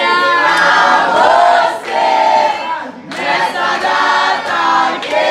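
A group of young people's voices singing together, loud and overlapping, with a short drop about three seconds in.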